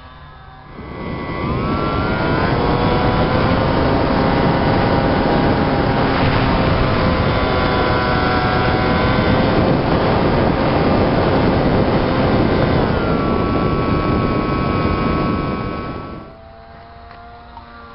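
Motor and pusher propeller of a homemade RC plane, heard from on board over heavy wind rush. The whine rises in pitch about a second in as the throttle opens, then holds a steady tone that shifts pitch about two-thirds of the way through. Near the end it drops to the fainter drone of the plane heard from the ground.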